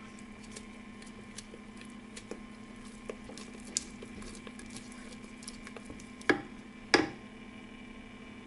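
Small clicks and taps of things being handled in a kitchen, with two louder short knocks about six and seven seconds in, over a steady electrical hum.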